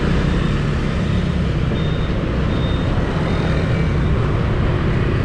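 Motorbike riding through city scooter traffic: a steady low rumble of engine and road noise.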